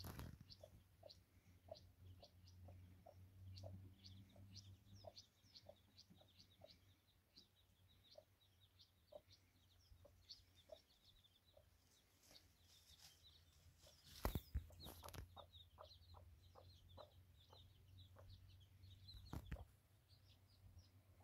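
Faint, quick short chirps of birds, several a second throughout, with two sharp knocks, about 14 and 19 seconds in.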